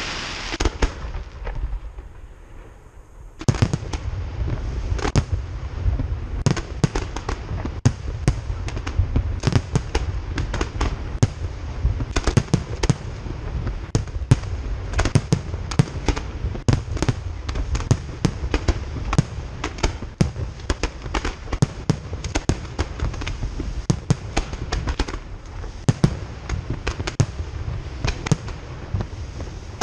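Fireworks display: aerial shells bursting in a rapid, dense barrage of bangs over a continuous low rumble. A fading crackling hiss gives way to a short lull, and the barrage starts about three seconds in.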